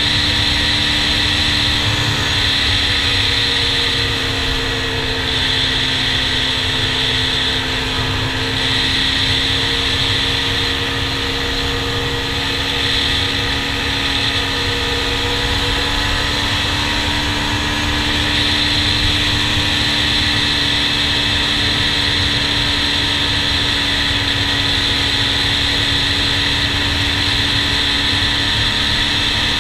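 Honda TRX400EX quad's single-cylinder four-stroke engine running steadily at cruising speed, its note dropping slightly a few seconds in and picking back up past the middle, with a steady rush of wind and road noise underneath.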